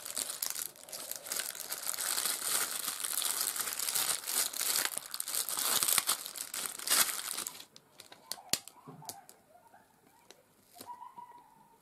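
Clear plastic film crinkling as a sheet of adhesive pearl embellishments is handled and bent, stopping suddenly about eight seconds in. Small, quieter clicks and taps follow as pearls are picked off the sheet.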